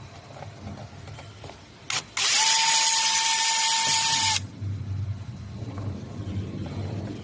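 Power drill giving a brief blip, then running steadily at one speed for about two seconds and stopping sharply, as used to drive or remove screws.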